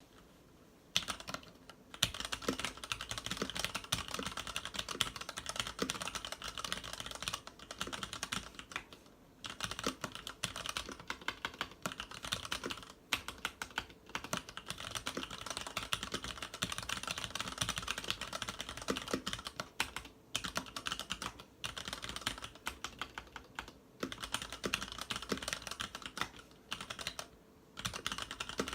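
Fast, continuous typing on a Varmilo VA87M mechanical keyboard with Cherry MX Red linear switches and PBT keycaps: rapid clacks of keys bottoming out in runs of several seconds, broken by short pauses.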